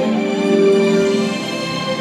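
Background music of slow, sustained pitched notes.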